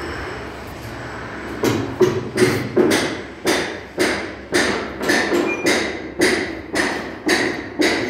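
Steady hammering: regular hammer blows, a little over two a second, beginning about a second and a half in.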